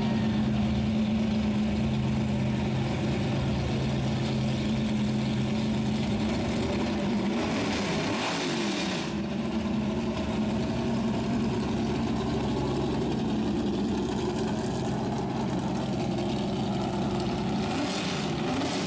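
Open-exhaust Plymouth drag car engine running at a slow roll, a steady loud lumpy rumble. Its pitch dips and rises briefly about eight seconds in.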